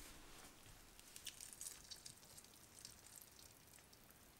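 Near silence with a few faint, short ticks: a quarter lemon being squeezed by hand into the muesli-bar mixture.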